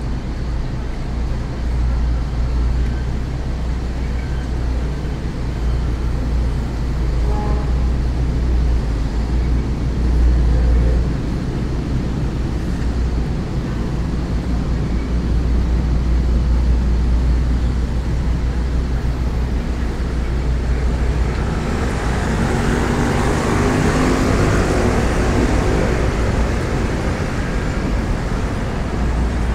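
Street traffic rumbling steadily, with one vehicle passing close about three-quarters of the way through, its engine swelling and then fading.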